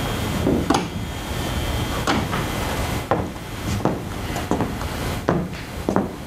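A woman's footsteps knocking on a stage floor as she walks forward, a series of sharp, unevenly spaced steps.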